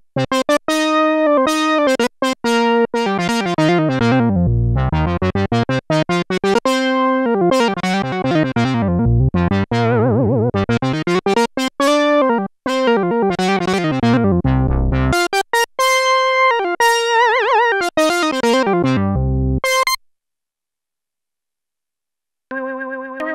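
Sequential Prophet-10 analog polysynth playing a factory preset: a bright, plucky patch played as fast runs of short notes that sweep down and back up in pitch. It stops about twenty seconds in, and a new, sustained patch begins near the end.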